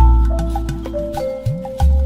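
Instrumental demo music: a deep bass note hits at the start and again near the end, under a quick run of light percussion ticks and a melody of held notes.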